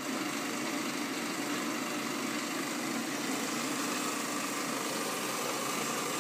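Horizontal metal-cutting bandsaw running steadily, its blade sawing through a thick-walled steel drill-stem pipe.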